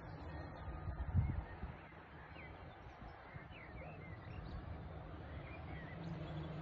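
Birds chirping in short, scattered calls over a steady low background rumble, with a low thump about a second in.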